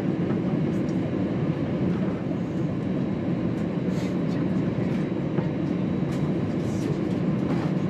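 Steady low cabin rumble inside an Airbus A321 taxiing on the ground with its engines running, with faint light rattles now and then.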